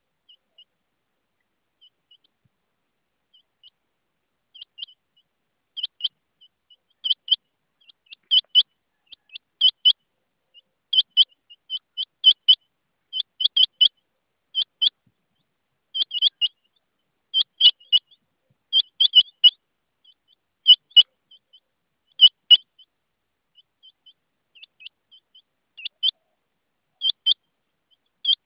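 Rain quail calling: short, high double or triple notes repeated about once a second. The calls are faint and sparse at first and loud from about six seconds in.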